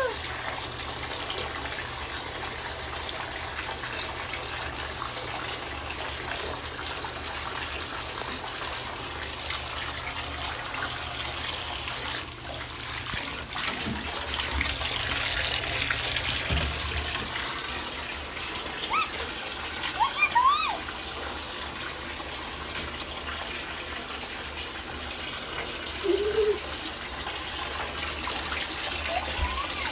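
Water running steadily from a bathtub tap into the tub. A few short, high, rising-and-falling cries cut in around two-thirds of the way through and again a little later.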